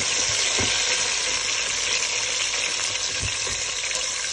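Sliced garlic and green chillies sizzling in hot oil in a pan, stirred with a wooden spoon, with a couple of soft knocks of the spoon against the pan.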